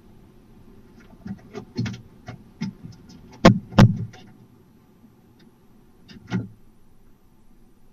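Barn owl's talons on the wooden roof of a nest box: a run of scratches and knocks as it shifts about, with two loud thumps about three and a half seconds in and one more knock a little past six seconds.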